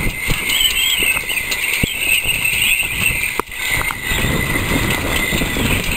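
Wind buffeting the microphone, with a few light knocks.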